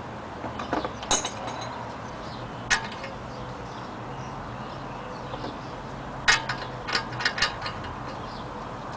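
Short, sharp metallic clicks and clinks from hand tools working the castle nut on a new outer tie rod end: a few about a second in, one near three seconds, then a quick cluster from about six to seven and a half seconds.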